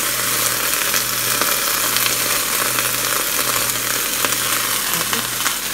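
String beans and green beans sautéing with garlic in oil in a frying pan: a steady sizzle with fine crackling.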